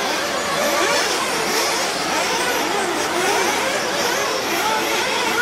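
Several 1/8-scale nitro RC buggies' small two-stroke glow engines racing, their overlapping high whines rising and falling as the cars accelerate and brake.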